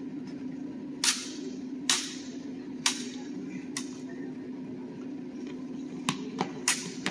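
Practice longsword blades striking each other in a fencing exchange: about six sharp clacks at uneven intervals, four spread over the first four seconds and two close together near the end.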